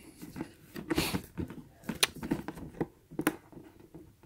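Fingers handling and prying at a cardboard box, making irregular taps, scrapes and rustles of the card, the sharpest about one, two and three seconds in.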